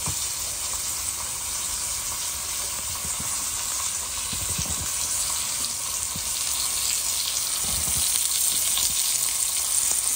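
Slice of ham frying in butter in a frying pan: a steady sizzle with small scattered pops.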